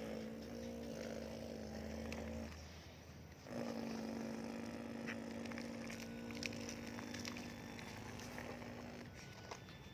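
Remote-control excavator's motor whining steadily, stopping for about a second and starting again, then stopping near the end. Small ticks and scrapes sound in the middle.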